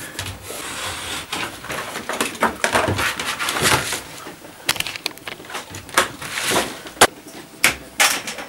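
Thin cereal-box cardboard handled on a wooden workbench: rustling and sliding of the sheets, then several sharp clicks and knocks.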